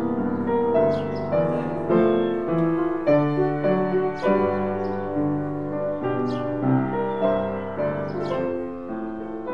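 Kohler & Campbell upright piano being played: sustained chords with a melody over them, notes ringing into one another.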